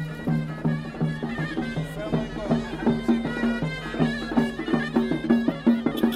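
Traditional folk music: a wind instrument holding sustained tones over a steady, driving drum beat.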